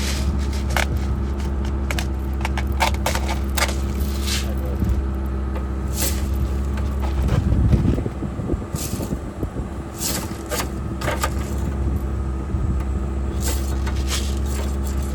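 Chevy HHR engine running steadily with a known rod knock, surging briefly about halfway through, with many irregular sharp clicks and snaps over it.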